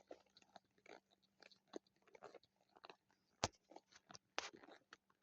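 Faint chewing: irregular soft crunches and clicks, with a sharper click about three and a half seconds in and another about a second later.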